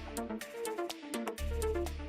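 Electronic background music: a deep sustained bass, a short repeating melodic figure and regular sharp percussion hits.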